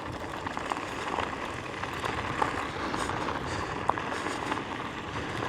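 Nami Klima electric scooter riding over a bumpy dirt trail: a steady rumble of tyres on dirt with wind on the microphone, and a few faint rattles and clicks.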